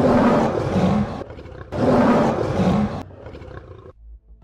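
A lion roaring twice: two long roars, each over a second, one straight after the other, then dying away.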